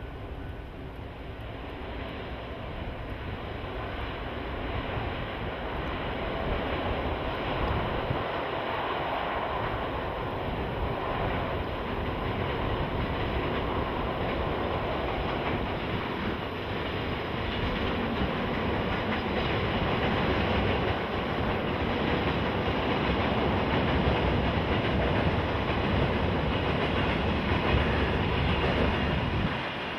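Freight train of oil tank wagons, hauled by an EF64 electric locomotive, running past on the rails. It grows louder over the first several seconds, then holds steady.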